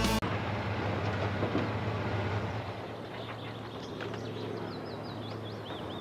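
Steady outdoor rumble, with small birds chirping quickly and repeatedly from about three seconds in.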